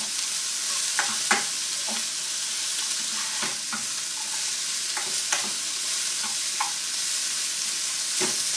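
Chopped onion frying and sizzling in a pan, with irregular scrapes and taps from a slotted spatula stirring it.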